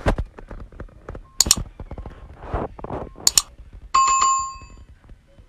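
Subscribe-button animation sound effects: two sharp mouse clicks, then a bright notification-bell ding about four seconds in that rings on and fades over about a second.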